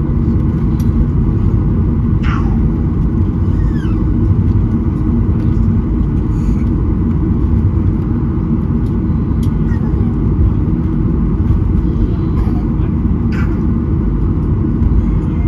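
Steady low rumble inside the cabin of a Boeing 737-800 with its CFM56-7B engines, as the jet rolls along the ground at night.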